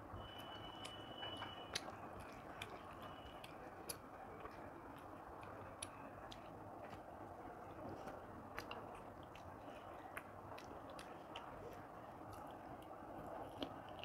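Quiet close-miked eating sounds: chewing, and fingers squishing rice and chicken curry together on a plate, with scattered small clicks.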